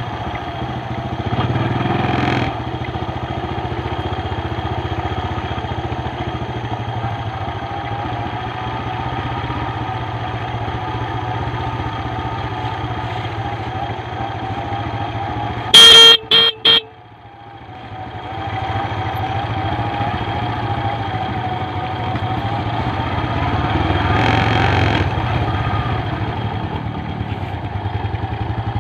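Motorcycle engine running steadily under way. About halfway through come a few short, loud horn toots, then the engine eases off briefly and picks up again.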